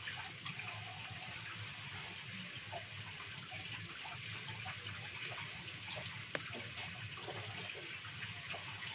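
Kitchen tap running steadily into a sink while frog meat is rinsed under it, with a few light knocks from handling.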